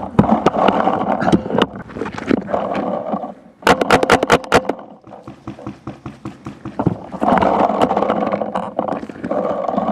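Paintball marker fire: rapid strings of pops, with a sharp burst of about eight shots in under a second near the middle.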